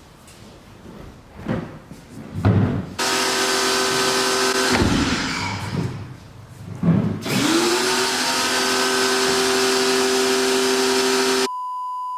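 A vacuum cleaner's motor switched on with a loud rush of air and a steady whine, cut off after about two seconds. It is switched on again, its whine winding up in pitch, and runs steadily. A few knocks come before it starts. Near the end it is cut by a steady beep tone.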